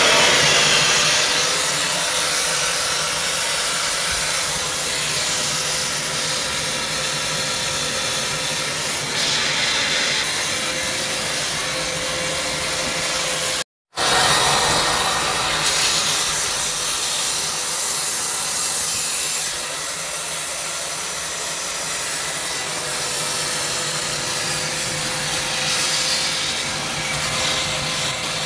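A wet vac runs steadily, sucking water through a shower pump's supply pipework to flush out debris and air before the isolation valves are opened. It stops for a moment about halfway, then runs on.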